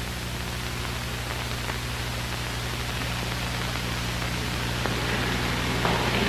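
Steady hiss that slowly grows louder, over a low electrical hum.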